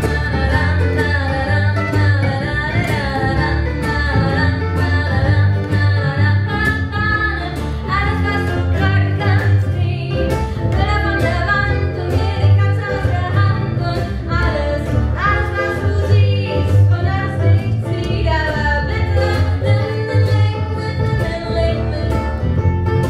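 Live acoustic band playing: acoustic guitars picked and strummed over a plucked upright double bass.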